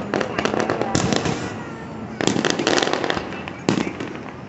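Aerial firework shells bursting: four sharp bangs about a second apart, each followed by a burst of rapid crackling, dying down near the end.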